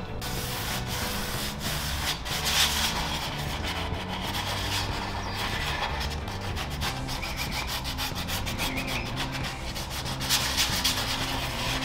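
150-grit sandpaper wrapped around a foam sanding block, rubbed by hand over a wooden chair's old finish in repeated back-and-forth strokes. It is a light scuff sand that gives the surface tooth for chalk paint.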